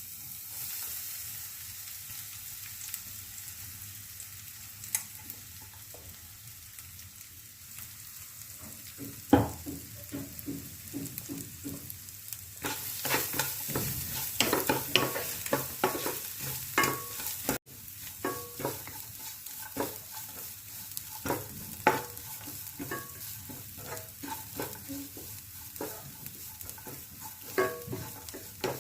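Ground coconut and coriander paste sizzling as it fries in coconut oil in a pan, stirred with a spoon that scrapes and knocks against the pan. The hiss runs steadily; the knocks and scrapes come thick from about a third of the way in, the loudest a single knock about nine seconds in.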